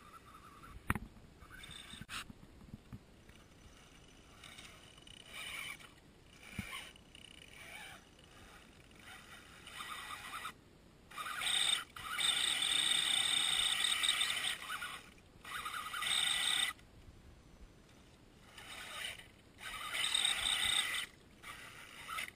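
Electric motor and gears of a 1/10-scale Axial Wraith RC rock crawler whining in repeated bursts of throttle as it climbs. The longest, loudest burst comes about halfway through, and a sharp knock comes about a second in.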